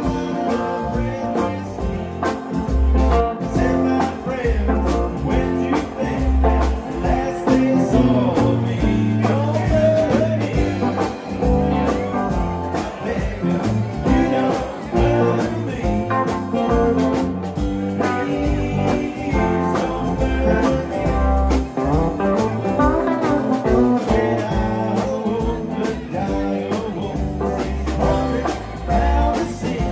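Live band playing a country-blues tune on electric guitars, keyboard and drums, with a steady drum beat and bass underneath. It is heard from beside the stage, mostly through the stage monitors with a little of the PA.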